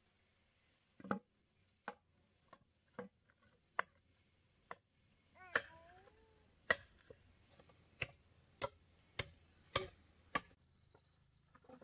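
Machete blows on bamboo: about fourteen sharp knocks, sparse at first and then coming roughly one or two a second. A child gives a short vocal sound about halfway through.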